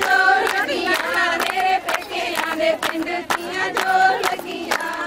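A group of women singing a Punjabi folk song together, with sharp handclaps keeping a beat about two to three times a second.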